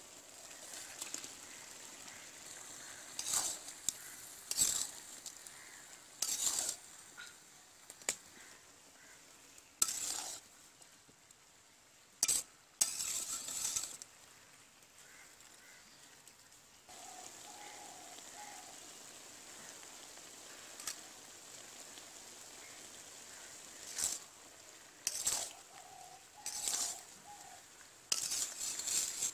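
Spinach, potato and fried fish sizzling in a large metal cooking pot, with a metal spatula scraping the pot in short, irregular strokes as the mix is stirred.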